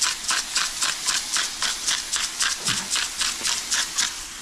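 Hand-held salt mill being twisted over a pan of ground beef, grinding in an even run of short grating strokes at about four a second, stopping near the end.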